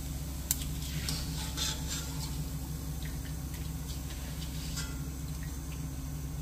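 Flattened rice (aval) frying in hot oil in a wire-mesh ladle: a faint sizzle with a few soft clicks and scrapes of the ladle, one sharp click about half a second in, over a steady low hum.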